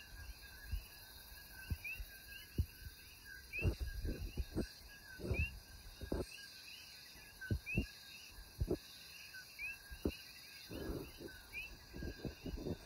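Coquí frogs calling, short upward-sweeping chirps repeating every second or two over a faint steady insect hum, with scattered low thumps and knocks as the loudest sounds.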